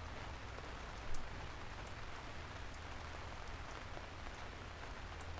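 Steady rain falling, an even patter with a low rumble beneath it, with one brief slightly louder moment about a second in.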